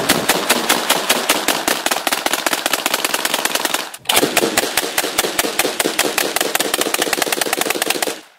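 AA-12 fully automatic 12-gauge shotguns firing long continuous bursts of rapid shots. A brief break comes about four seconds in, then a second long burst that stops just before the end.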